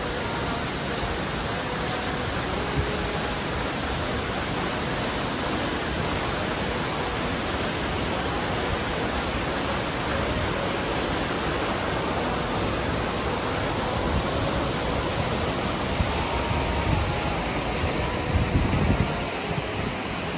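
Steady rushing of white water from a mountain waterfall and fast creek, an even hiss with no break. A few louder low bumps come near the end.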